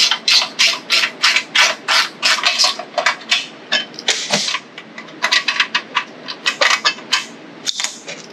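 Hand tools and small metal engine parts clicking and clinking against a steel workbench during engine teardown. A quick run of sharp clicks over the first four seconds, then scattered ones.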